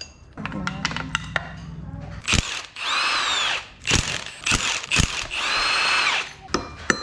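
Power drill spinning up and winding down in two short bursts of about a second each, with sharp clicks of tools being handled between them.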